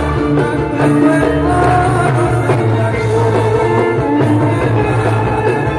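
Javanese gamelan music with singing, played loud through a PA sound system with a heavy, steady bass.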